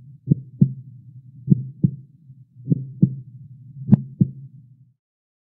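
Heartbeat sound effect: four lub-dub double thumps, a little over a second apart, over a faint low hum. It stops shortly before the end.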